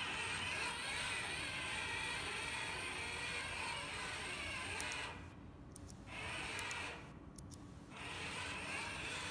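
Warehouse robot's drive motors and gears whirring steadily as it drives, cutting out suddenly about five seconds in when the emergency stop halts every motor. It then starts and stops again briefly, and runs once more near the end.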